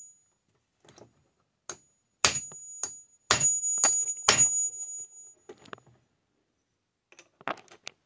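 Hammer striking a steel punch to drive the armature shaft of a Craftsman table saw motor out of a stuck bearing held in a bearing separator. Three loud, ringing metal blows come about a second apart, with lighter knocks before and after.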